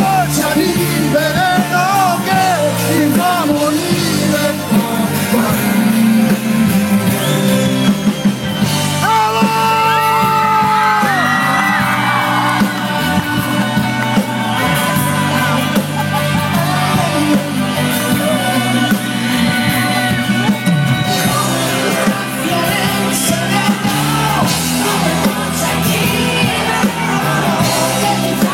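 Rock song playing: a full band holds steady chords while a lead melody line slides and bends in pitch above them.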